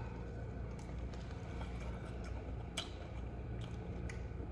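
Faint eating noises: a few scattered small clicks over a steady low hum.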